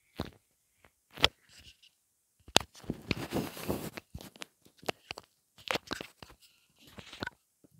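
Hungry stomach gurgling close to the microphone in irregular bursts, with a longer run of gurgles about three seconds in; the stomach holds only water.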